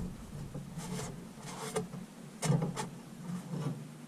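Hamburger buns rubbing and scraping in a nonstick frying pan as they are turned by hand, and the pan shifting on a portable gas stove's grate, with several short light knocks and clatters. The loudest knock comes about two and a half seconds in.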